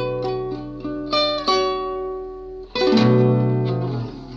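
Nylon-string classical guitar played fingerstyle: picked notes and small chords ring over a held bass note, then a full chord is struck about three seconds in and rings out, fading near the end.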